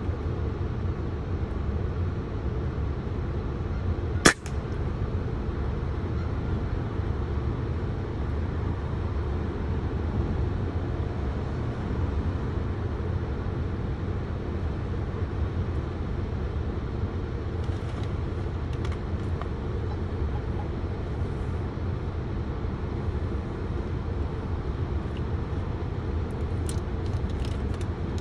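A single sharp, short shot about four seconds in from a suppressed .22 Crosman 2240 air gun converted to high-pressure air, over a steady low rumble.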